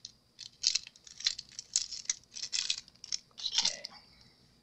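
A wipe rubbed along a craft knife blade in a series of short strokes, about two a second, stopping near the end.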